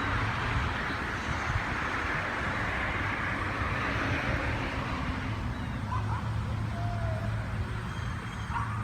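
Road traffic: a vehicle passes, its noise swelling and fading over the first few seconds, over a steady low engine hum.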